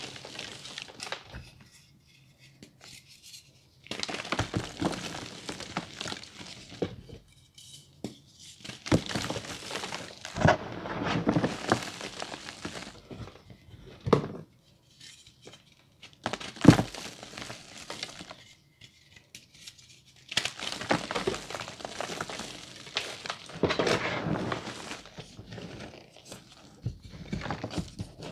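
Reformed gym chalk crushed and crumbled by hand into powder: bursts of dry crunching and crumbling with short pauses between, and a couple of sharp snaps about midway.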